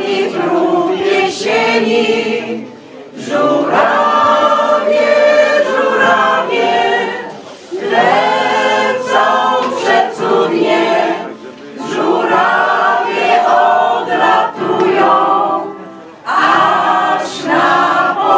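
Mixed choir of women and men singing together, line by line, with short breaks between phrases about every three to four seconds.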